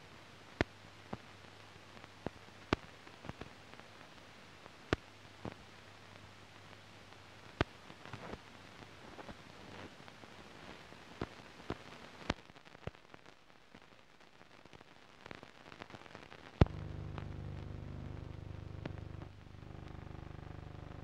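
Crackle and sharp pops of an old newsreel soundtrack over a stretch with no sound recorded, above a faint hiss and low hum. About sixteen seconds in, a sharp click is followed at once by a louder steady low rumble with hum.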